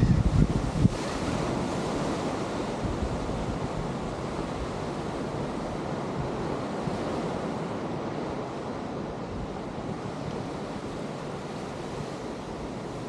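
Ocean surf washing against the coast, a steady rush with wind buffeting the microphone, heaviest in the first second.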